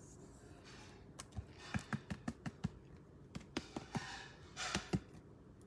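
Trading cards and clear plastic card holders being handled on a table. A run of light taps and clicks, with short sliding rustles in between, starts about a second in and stops near the end.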